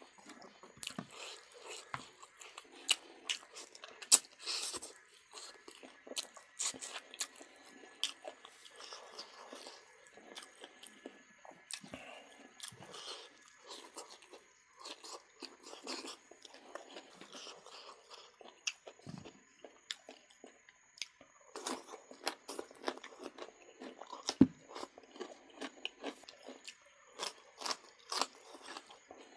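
Close-up mouth sounds of a person biting and chewing duck meat: wet chewing with many irregular sharp crunching clicks throughout.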